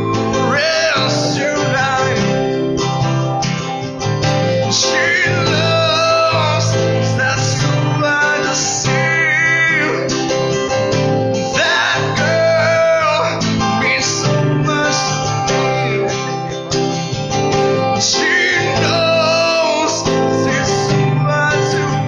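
Two acoustic guitars played together while a man sings lead, a live acoustic duo performance.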